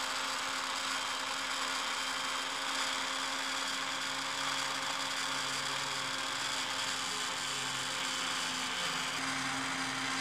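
Electric blender motor running steadily at one speed, pureeing peeled tomatoes and water into a smooth paste, with a constant hum.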